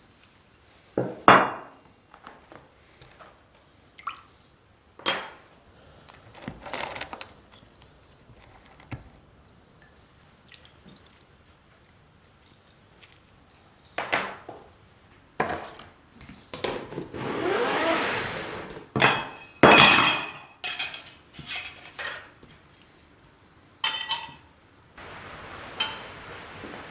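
Hard objects being handled, with scattered clinks and knocks. A brief rushing sound swells and fades a little past the middle, and a busier run of clinks follows.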